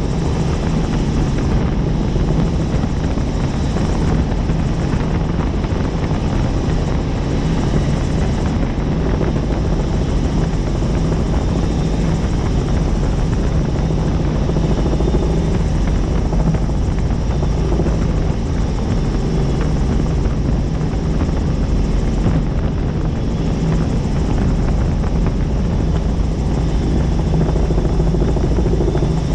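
Helicopter in flight, its rotor and engine making a steady low drone with a hiss above it.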